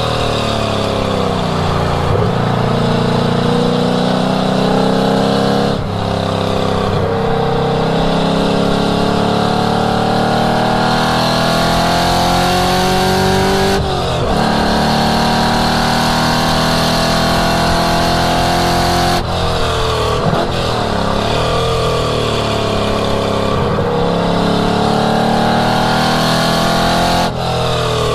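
1967 Ford Mustang engine at full throttle on a race track. Its pitch climbs and falls as it runs through the gears and corners, with several brief dips where the note drops sharply at shifts or lifts.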